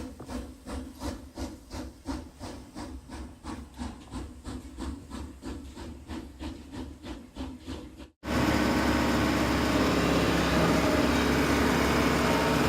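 A quiet mechanical clacking at about three to four strokes a second. About eight seconds in it cuts abruptly to a loud, steady running of a heavy engine with a low hum.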